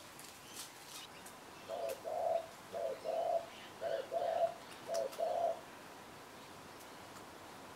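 A dove cooing: four low two-part coos in a row, each a short note followed by a longer one, with faint bird chirps behind.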